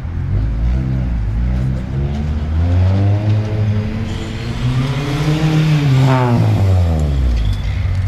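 Car engine revving hard and easing off over and over, its pitch climbing and dropping several times as it is driven around a tight cone course. It is loudest about five to six seconds in, then falls away.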